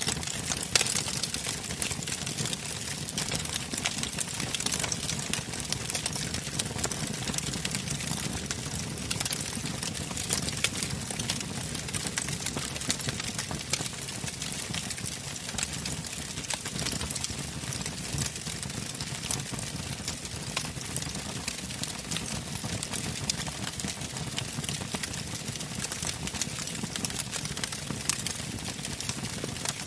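Steady, even ambient noise with many small crackles running through it. It is the kind of masking background track that subliminal affirmations are hidden under.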